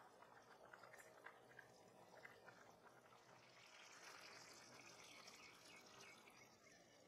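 Faint bubbling of basmati rice and vegetables boiling in a pot over high heat, small pops and a soft hiss as the cooking water boils down.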